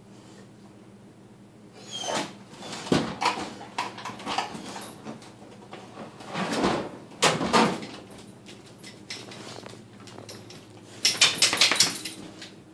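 Plastic dog-door flap knocking and rattling as a large dog squeezes its body through the small opening, with scuffs and clicks from its paws on the tile floor. Bursts of clattering start about two seconds in, with another cluster of quick clicks near the end.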